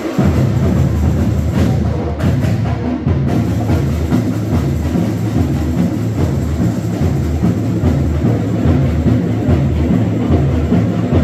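Samba percussion music, with deep bass drums beating a steady rhythm.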